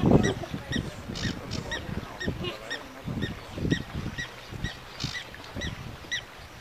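A high chirping call repeated at a steady pace, about three times a second, over a low wind rumble that is loudest at the start.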